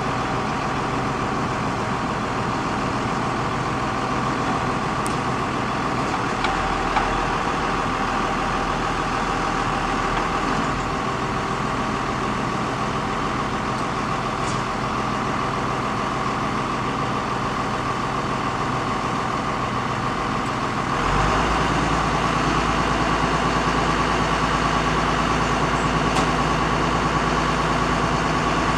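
Aerial ladder truck's engine running steadily at idle; about 21 seconds in it gets louder, with a deeper hum added.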